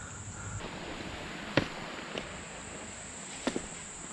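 A few sharp clicks or knocks, the loudest about a second and a half in and a quick pair near the end, over a steady high insect drone in the summer woods by a creek.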